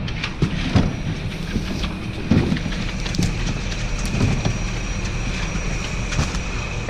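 Heavy diesel machinery running with a steady low rumble and scattered knocks, a thin steady whine above it.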